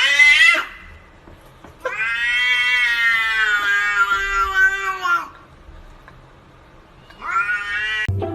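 A domestic cat meowing in long, drawn-out calls: one ends just after the start, a long one lasts about three seconds with its pitch slowly falling, and a shorter rising one comes near the end.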